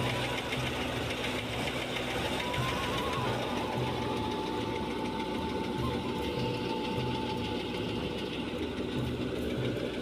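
Tractor-driven wheat thresher running steadily, a dense clattering machine noise over the low, even throb of the tractor engine.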